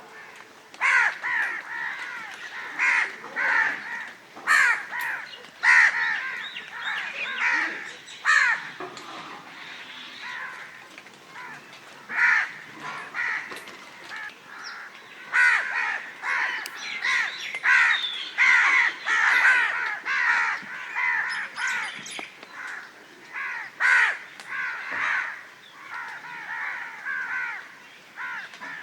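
Crows cawing: many short, harsh caws in quick runs, overlapping in places as if several birds call at once.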